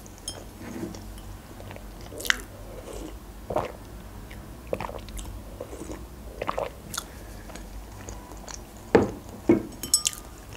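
Close-miked mouth sounds of a person chewing soft red velvet cake with whipped cream: scattered wet smacks and clicks, with a few louder sharp knocks near the end.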